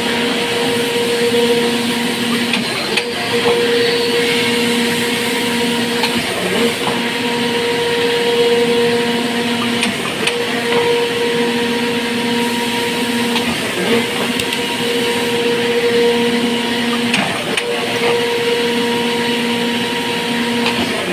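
Surface grinder wet-grinding a metal plate: a steady grinding hiss with a hum, which breaks with a faint knock about every three and a half seconds as the table reverses its stroke.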